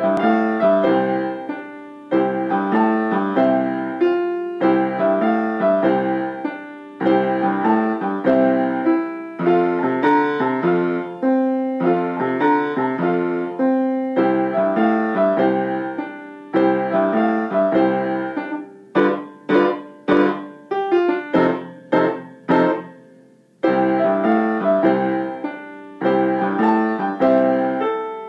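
Upright piano played four hands: a simple bass-clef solo with a duet accompaniment, in phrases about two seconds long that each ring and fade. About two-thirds of the way through it switches to short, detached chords, pauses briefly, then the flowing phrases return.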